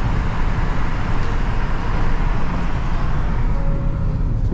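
Steady road and engine noise of a car driving at speed, heard from inside the cabin: a constant low rumble with tyre hiss over it.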